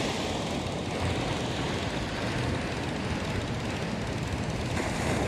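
Steady rush of small waves breaking on a sandy beach, with a low rumble underneath.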